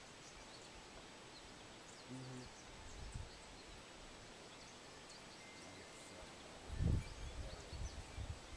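Quiet outdoor ambience with faint, scattered bird chirps. There is a brief low thump about seven seconds in.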